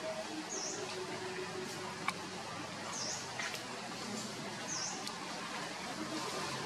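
A bird chirping: three short, high notes about two seconds apart over a steady background hiss, with a faint click about two seconds in.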